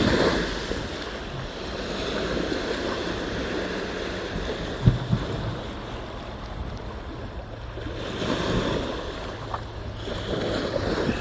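Wind buffeting the microphone over waves washing in, swelling and easing, with one sharp knock about five seconds in.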